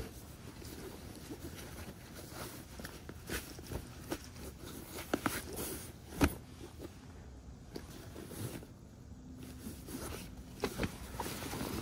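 Waterproof ground sheet and fabric gear bags rustling and scuffing as they are handled, with scattered light clicks and taps; the sharpest knock comes about six seconds in.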